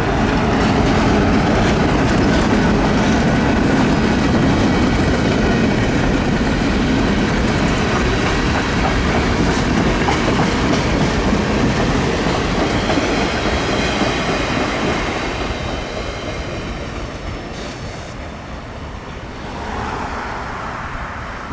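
CSX local freight train passing close by, its wheels clattering over the rail joints; the noise is loud for the first half and slowly fades toward the end.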